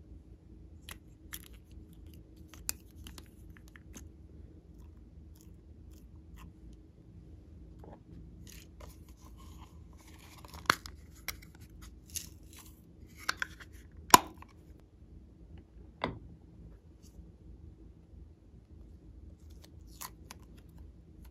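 Hands handling small plastic craft items and packaging: scattered light clicks and rustles, with a stretch of crinkling and a few sharp plastic clicks around the middle.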